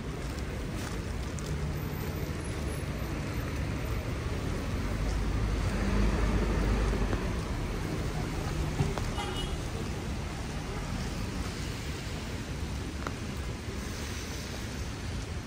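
City street traffic on a rain-wet road: a steady hiss of tyres on wet pavement and engines, with a vehicle passing loudest about six to eight seconds in.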